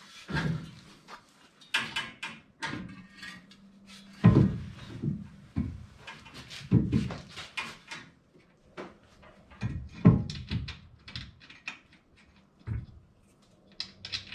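Irregular knocks, clanks and scrapes as a Jeep TJ tire-carrier rear bumper is manhandled into place and bolts are fitted, with heavy thumps about 4, 7 and 10 seconds in.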